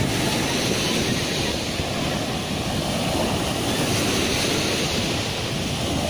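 Small surf on the Sea of Azov breaking and washing up a shell beach, a steady hiss of waves, with wind noise on the microphone.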